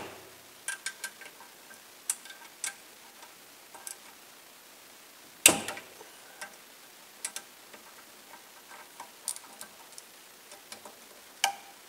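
Light, irregular metal clicks and ticks from hand tools working the ignition coil mounting bolts on a Predator 212 small engine, with one louder sharp click about five and a half seconds in.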